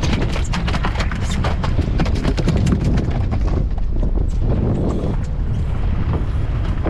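Mahi-mahi thrashing on the boat's fiberglass deck: a rapid run of slaps that thins out after about three seconds, over steady wind and boat rumble.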